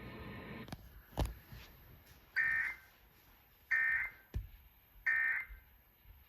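Emergency Alert System end-of-message signal: three short, identical bursts of SAME data tones, a little over a second apart, after a couple of clicks.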